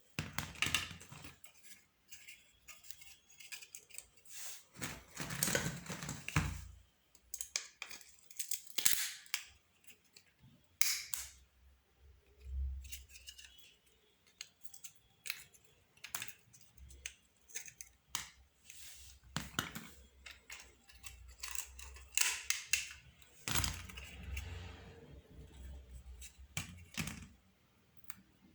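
An old telephone being taken apart by hand: irregular clicks, snaps and short scraping of its plastic casing and small metal parts, with a few longer rustling scrapes.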